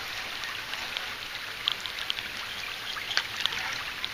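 Steady rain hiss with a few scattered light taps of drops.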